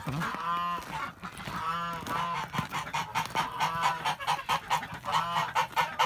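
White domestic geese honking repeatedly, several drawn-out calls one after another.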